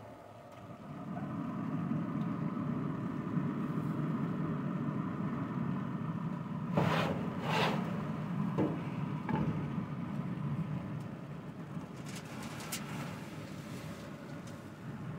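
A steady low rumble under two clunks about seven seconds in as the pellet grill's steel lid is lifted open, then lighter knocks and scrapes as a foil-covered aluminium pan is slid across the grill grate and off onto a wooden board.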